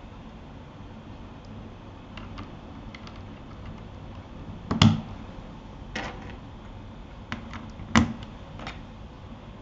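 Scattered clicks and knocks from a Keychron K8 keyboard being handled, several seconds apart and irregular. The two loudest, with a dull low thump, come about five and eight seconds in.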